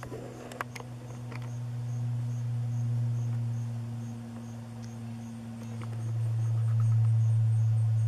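Insects chirping in an even rhythm of faint high chirps, about two a second, over a low steady hum that swells and fades.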